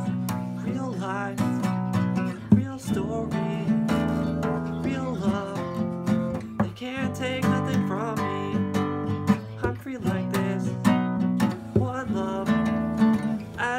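Steel-string acoustic guitar strummed in a steady rhythm, its chords changing every few seconds.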